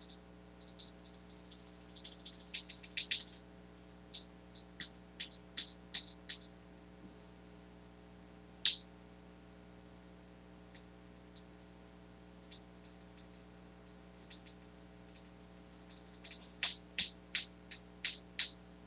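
Bare Gateron Ink Red linear switches pressed and released by hand in a sound test, making sharp clicks: first an unlubed switch, with a fast flurry of clicks about two seconds in, then a metallic spring ping in its strokes; after a pause, a lubed switch pressed in a run of clicks toward the end.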